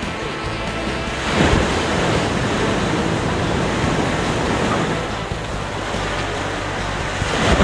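Ocean surf breaking and washing up the shore, with a wave crashing about a second and a half in and another near the end.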